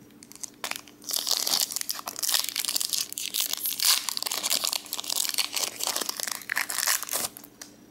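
Foil Pokémon booster pack wrapper crinkling as it is handled and torn open, a dense irregular crackle that starts about half a second in and stops shortly before the end.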